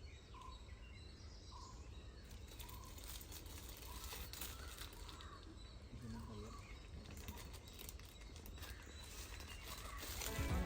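Faint outdoor ambience: small birds chirping in short repeated calls over a steady low rumble.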